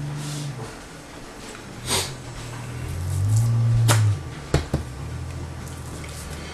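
A few sharp clicks and light knocks of kitchen handling at a wooden cutting board, around the middle, over a low steady hum.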